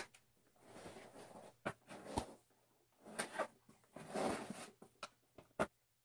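Plastic rotary knob of a Clatronic ES-2243 espresso maker being twisted and pulled off its valve spindle: four stretches of scraping and rubbing, broken by several sharp plastic clicks.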